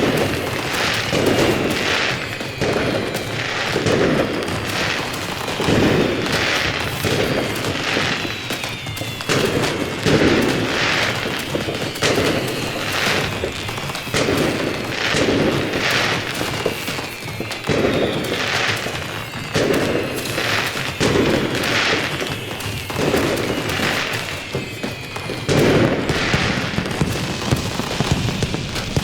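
Fireworks going off one after another, with bangs and crackles about once a second and falling whistles over them.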